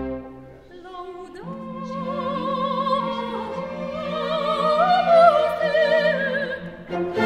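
Classical solo singing: a high voice slides up into a long held note with wide vibrato, rises to a louder peak about five seconds in, then falls away near the end, over held string accompaniment.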